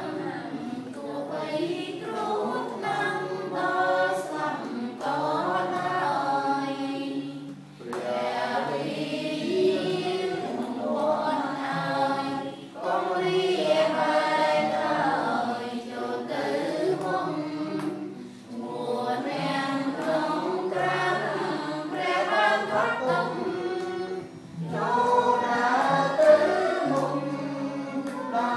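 Hymn singing in a church, sung in phrases a few seconds long with short breaks between them.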